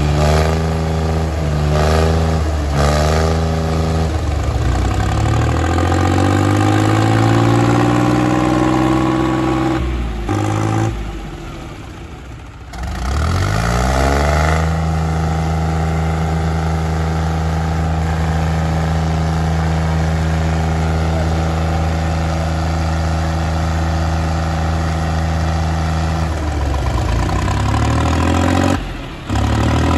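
Two diesel tractors, a John Deere 5050 D and a New Holland 3630, running hard under heavy pulling load in a tug of war. The engine note rises and falls in the first few seconds, drops away about ten seconds in, then climbs back up and holds steady, easing again near the end.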